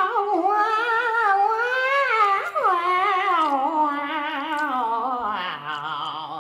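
A woman's voice singing a wordless run into a karaoke microphone, with wavering held notes, a quick swoop about halfway through, and a step down to a low note near the end.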